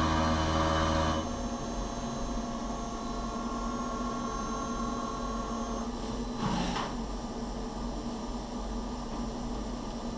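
Five-axis CNC milling machine running: a steady hum of several tones that cuts out about a second in, leaving a lower steady machine hum. A brief swelling sound comes about six seconds in as the spindle head moves away from the turbine blade.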